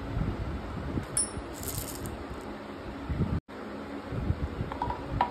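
Small metal scooter parts clinking and jingling together in a hand, with a short clatter about a second in. A few light metallic clinks come near the end.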